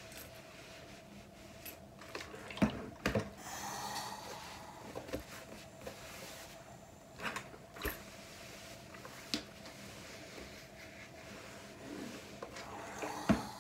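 Quiet handling sounds of pressing fabric: a clothes iron set down and slid over cloth on a pressing board, and hands smoothing the fabric, with several short soft knocks scattered through and a faint steady hum underneath.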